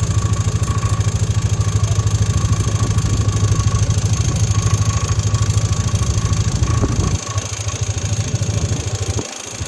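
An engine idling with a steady, fast, even low throb. It gets quieter about seven seconds in.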